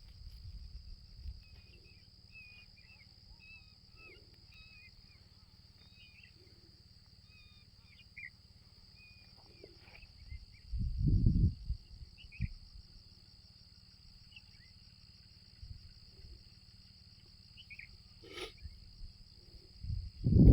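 A steady high-pitched insect drone, with small birds chirping in short calls through the first half. A short low rumble comes about halfway through, and there is a single click near the end.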